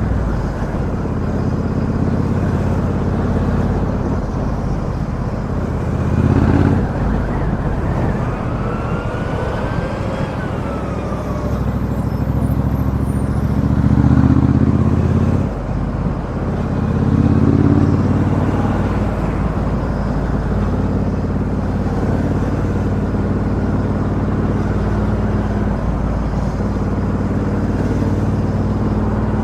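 2017 Triumph Bonneville T120 Black's 1200 cc parallel-twin running through a Customer aftermarket exhaust on the move, heard through a microphone inside the rider's helmet. A steady low engine note swells briefly with the throttle three times: about six, fourteen and seventeen seconds in.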